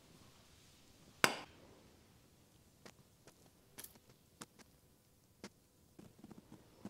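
A metal teaspoon clinking against small glass tumblers while honey is spooned into them. One sharp clink about a second in rings briefly, then a few faint ticks follow.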